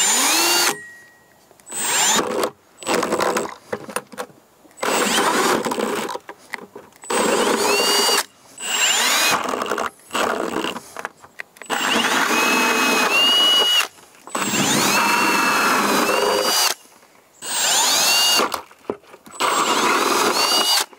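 Milwaukee Fuel cordless drill with a 2-inch hole saw cutting through a plastic 5-gallon bucket, run in repeated bursts of one to three seconds with short pauses between. Each burst opens with the motor's whine rising as it spins up.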